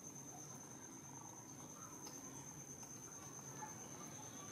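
Quiet room tone with a faint, steady high-pitched whine and a faint click about two seconds in.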